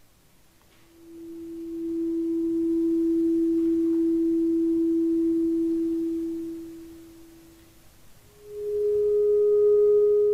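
Solo clarinet holding one long, almost pure note that swells up out of silence, holds, and dies away. About eight seconds in, a second, higher note enters and swells quickly to full strength.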